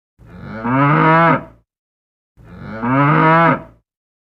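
Cow mooing: two identical long moos, one after the other.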